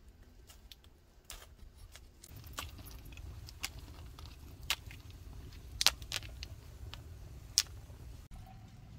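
A teepee-stacked wood fire burning: a low steady rush of flame with scattered sharp pops and crackles, the loudest two or three crackles past the middle. Before that, only faint light clicks.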